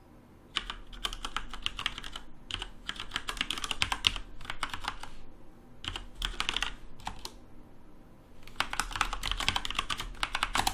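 Fast typing on a computer keyboard: four runs of quick keystrokes with short pauses between them.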